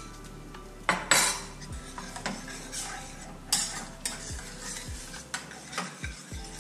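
Metal spatula stirring and scraping creamy mushroom sauce in a stainless steel pan, in a few quick strokes. The loudest scrape comes about a second in and another at about three and a half seconds.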